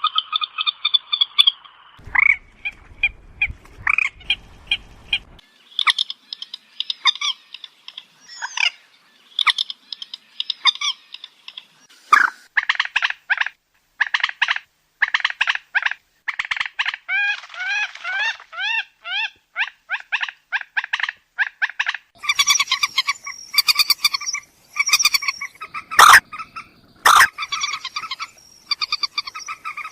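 Moorhen (trích rẽ) calling: runs of short, rapid clucking notes repeated over and over. Two sharp clicks come near the end.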